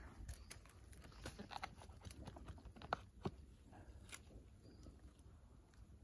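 Faint scattered snaps and rustles, with a few sharper clicks between about one and a half and four seconds in: a knife and hands cutting a cluster of oyster mushrooms off a rotting stump among dry leaves.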